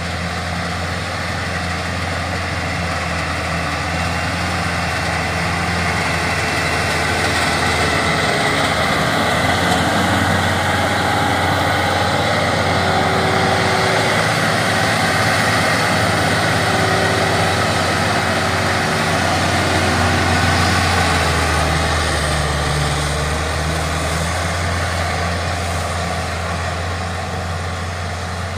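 Small crawler tractor's diesel engine running steadily while it pulls a rotary tiller through the soil. It grows louder toward the middle as the tractor passes close, then eases off as it moves away.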